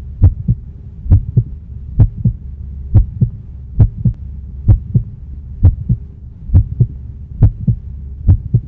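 Heartbeat-style sound effect: pairs of deep thumps, a strong beat then a weaker one, repeating a little more than once a second over a steady low hum.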